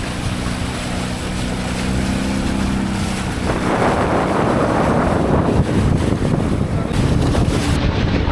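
Speedboat engine running steadily, with wind buffeting the microphone. About three and a half seconds in, a louder rushing noise of wind and water covers the engine hum.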